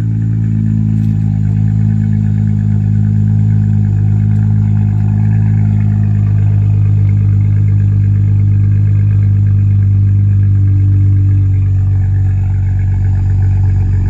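Dodge Challenger's V6 idling steadily through an exhaust that is a little aggressive, a low even note just after start-up.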